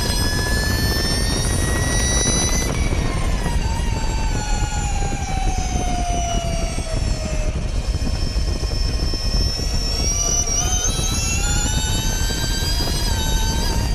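Ducati V21L MotoE electric race bike at speed, heard from its onboard camera: the high whine of the electric motor and drivetrain, a stack of tones that rises, falls steadily for several seconds as the bike slows into a corner, then climbs again as it accelerates out near the end. Under it runs a steady rush of wind and road noise.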